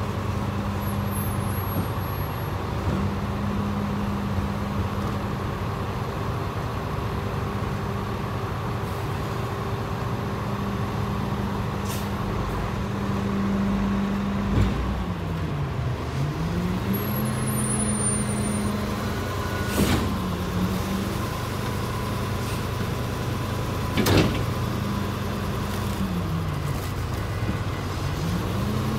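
Bee-Line city transit bus engine running as the bus turns and pulls past, its steady drone dipping and then rising in pitch twice. A few short, sharp sounds come over it, the loudest about two-thirds of the way through.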